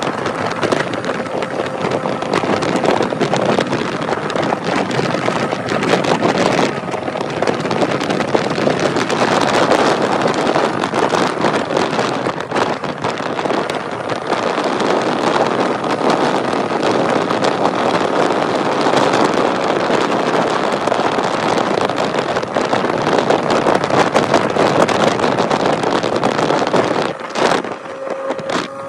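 Wind rushing over the microphone on a moving motorcycle at road speed, with the motorcycle's engine running steadily underneath. The rush briefly eases near the end.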